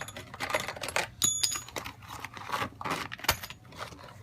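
Handling and unpacking a squeaky-floor repair kit: packaging rustling and parts clicking, with a short bright ring about a second in as hard pieces knock together.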